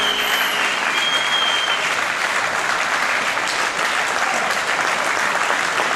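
Audience applauding steadily, with the last notes of the music dying away just at the start.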